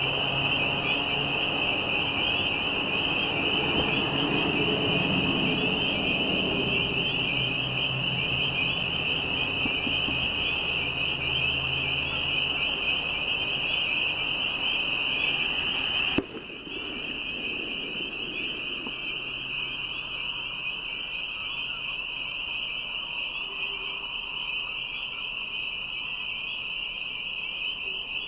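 Dense chorus of spring peepers: a continuous high peeping, many frogs calling at once, over a low hum. About sixteen seconds in, the low background cuts out abruptly with a click, while the peeping goes on.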